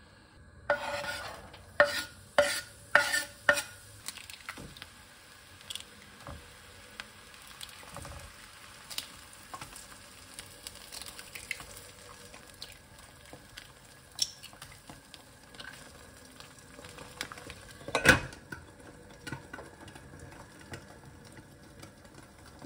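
Kitchen cookware sounds: a utensil knocks sharply against cookware five or six times in quick succession, then lighter clicks and clinks follow here and there, with one louder knock near the end.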